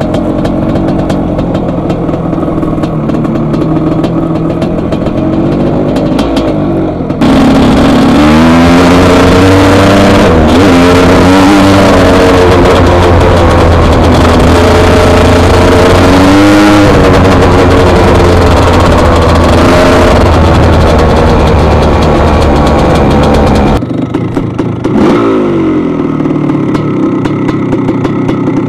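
1981 Husqvarna 430CR two-stroke single-cylinder engine heard from the rider's breast pocket while riding, freshly rejetted with a repacked muffler. It runs at part throttle at first. About seven seconds in it is opened up hard, much louder, with the engine pitch rising and falling repeatedly, and it eases back off near the end.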